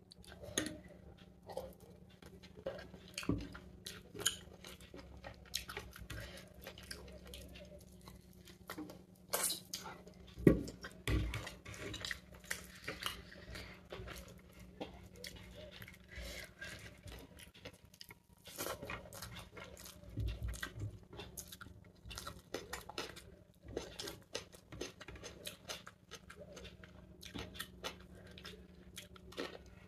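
Close-up eating sounds of chicken biryani with raita eaten by hand: chewing, with irregular small clicks and crackles and a few louder knocks.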